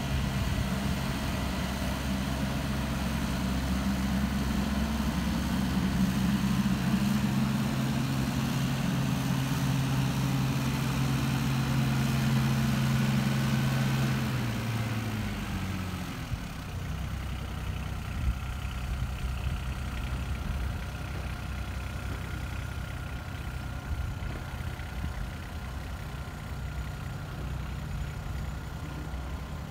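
Caterpillar 302.7D CR mini excavator's diesel engine running steadily at working speed while it digs and swings; about halfway through the engine note drops and it runs more quietly as the machine moves off on its tracks, with a couple of short knocks.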